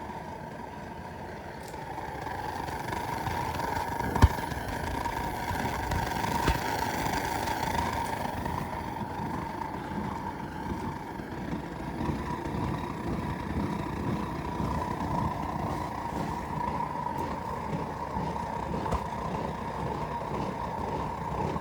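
Gas forge with three burners running, a steady rushing roar during its first warm-up. A single sharp knock about four seconds in.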